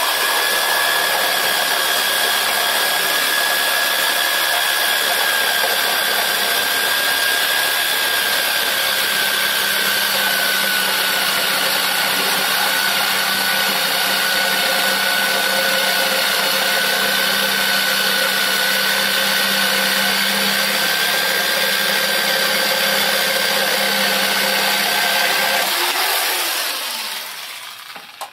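Black+Decker corded jigsaw running and sawing through a wooden plank: a steady motor whine with the blade cutting the wood, the pitch dropping slightly partway through. Near the end the saw is switched off and winds down.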